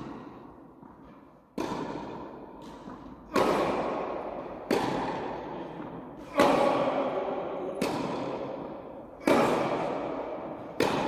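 Tennis rally: sharp pops of rackets striking the ball and the ball bouncing on the court, roughly every one and a half seconds. Each hit echoes and dies away slowly in the large indoor tennis hall.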